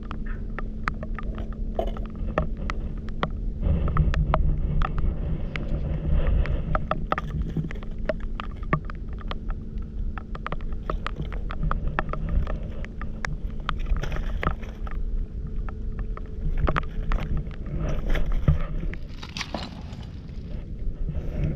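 Wind and rain on the microphone while walking over a wet, stony foreshore: a steady low rumble with many irregular sharp ticks, and a faint steady hum under it.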